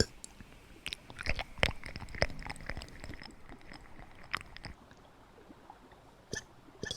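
Close-miked mouth sounds of a person eating: a run of crisp crunches and wet clicks from about a second in until nearly five seconds in, then a couple of single clicks near the end.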